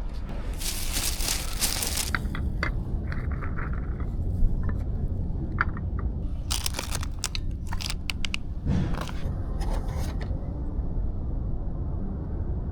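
Cooking at a grill: scraping, clicks and short crackling bursts come and go, loudest in the first two seconds and again from about six to ten seconds in, over a steady low rumble.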